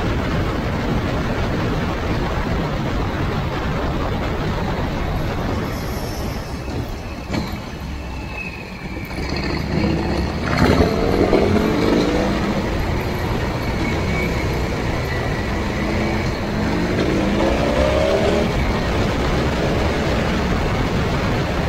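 Wind rushing over the microphone of a camera mounted low on a Harley-Davidson Heritage riding at road speed, with the V-twin engine running underneath. Twice, about halfway through and again near the end, the engine's pitch climbs as the bike accelerates. A single sharp knock comes just before the first climb.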